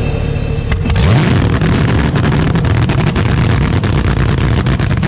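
Drag race car's V8 engine running loud and rough, with a brief rise in revs about a second in.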